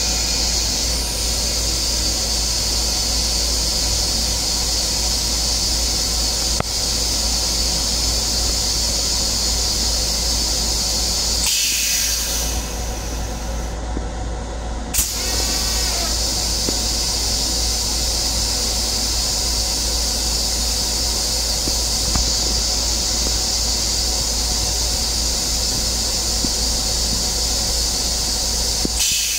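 Steady hiss over a low rumble inside the small restroom of a Long Island Rail Road M7 railcar: the car's own running and ventilation noise. The hiss drops away for about three seconds midway, with a brief faint squeal as it returns.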